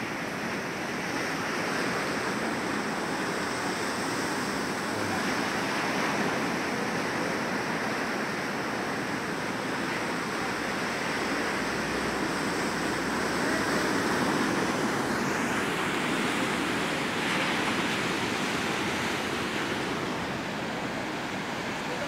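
Big surf breaking and washing up onto a sandy beach: a steady rush of water noise that swells a little and eases as each set of waves comes in.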